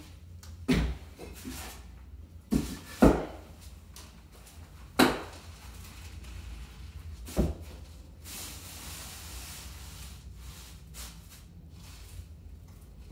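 Wooden blocks and a steel pry bar knocking and clunking as a cast iron radiator on a wooden furniture dolly is levered up and blocked. About five sharp knocks, the loudest about three and five seconds in, then a short scrape around eight seconds in.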